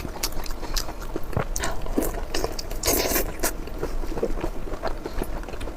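A person biting and chewing food close to the microphone, a steady run of many short clicks and crunchy bursts.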